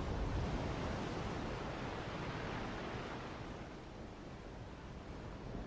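Soft, steady rushing nature ambience, a background bed of waves or wind, easing slightly about four seconds in.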